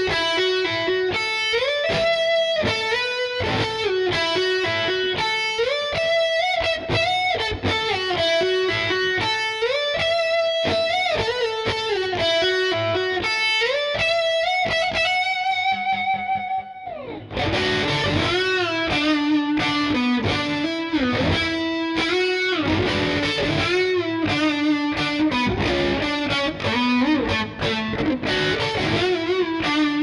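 Schecter C1 Elite electric guitar playing a single-note lead melody with vibrato on held notes. About 17 seconds in, a long wavering note drops away in a quick downward slide, and the phrases then carry on lower in pitch.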